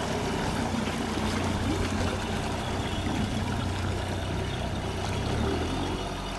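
Mercury Verado 200 four-stroke outboard pushing a small cabin boat away at low speed: a steady low engine drone under the wash and lapping of water.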